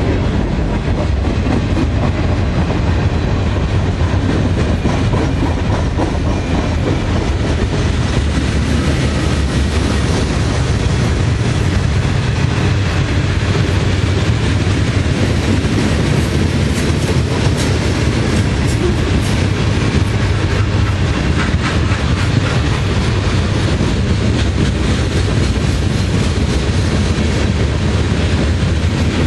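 Freight cars of a long freight train rolling past close by: a steady rumble of steel wheels on the rails, with rapid clicks from the wheels on the track, thickest about midway through.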